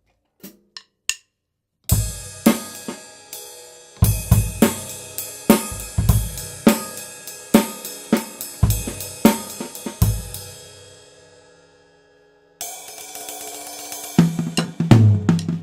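Tama Swingstar drum kit with Meinl cymbals, played with sticks and picked up on a Blue Yeti microphone. After three light clicks, drum hits and cymbal crashes come about twice a second. The hits stop about ten seconds in and the cymbals ring out. A cymbal wash starts near the end and the drums come back in.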